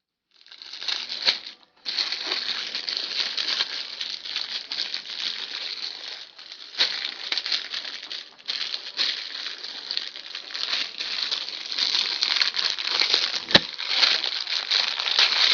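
Packaging crinkling and rustling continuously as a rubber phone case is worked out of it, with a short break about a second and a half in and a single sharp knock near the end.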